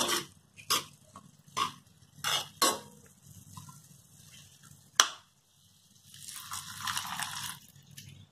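Metal spatula stirring and scraping chopped elephant foot yam leaves around a metal wok, in a series of short scrapes. There is a sharp clink of the spatula on the pan about five seconds in, then a longer hissing scrape near the end.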